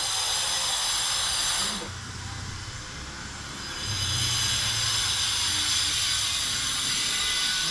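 Electric drill running with a steady high whine in two bursts, stopping for about two seconds in between.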